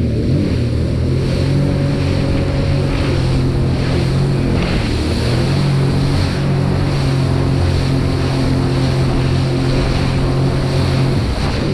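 Sea-Doo personal watercraft engine running steadily at speed over choppy water, with the rush of spray and wind buffeting the microphone.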